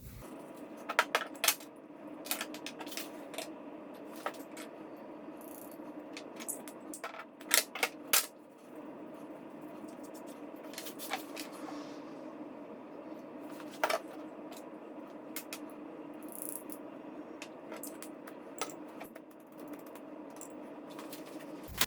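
Scattered sharp metallic clicks and clinks at irregular intervals, loudest around a quarter and a third of the way in, over a steady low hum.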